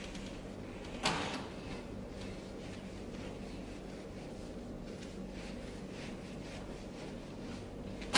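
Whiteboard eraser rubbing across a whiteboard in repeated wiping strokes, with a sharp knock about a second in and a louder one near the end.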